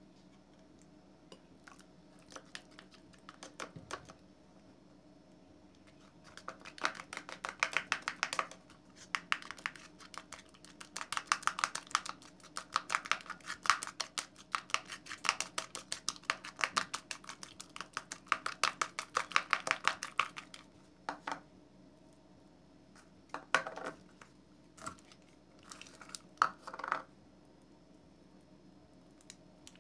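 Soap slime being stirred with a plastic spoon in a bowl: rapid sticky clicking and scraping, many clicks a second, in dense stretches from about six seconds in until about twenty, then only a few scattered squelches.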